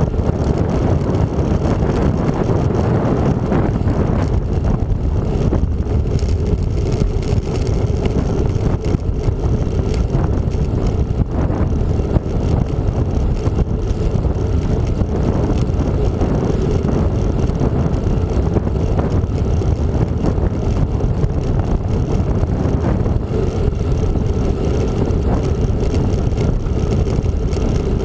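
Steady wind rush on the microphone of a handlebar-mounted camera on a moving bicycle: a loud, even, low rumble with no breaks.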